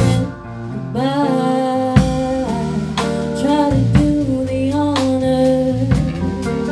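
A live band playing a song: a woman singing lead over electric guitar, bass guitar and a drum kit. The level drops briefly just after the start, and the full band comes back in about a second in.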